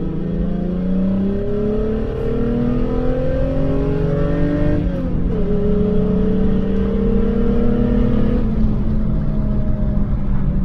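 Volkswagen Golf 3's naturally aspirated VR6 engine under hard acceleration, heard from inside the cabin. The revs climb steadily, drop at an upshift about five seconds in, then climb more slowly in the next gear until the driver eases off about eight and a half seconds in.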